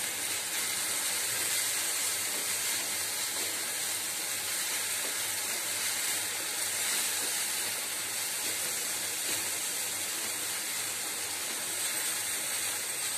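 Onion-tomato masala sizzling steadily in hot oil in a kadhai as it is stirred, being fried until the oil separates.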